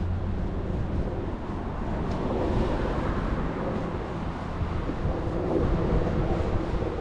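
Wind on the microphone over the steady wash of surf on the shore, with cars passing on the road alongside.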